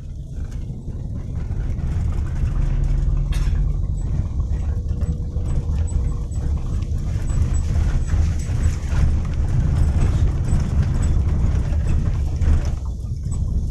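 Cabin noise of a Daihatsu Xenia driving over a rough, broken road: a steady low rumble of tyres and body vibration. No knocking comes from the rear suspension, whose worn stabilizer rubbers have just been replaced.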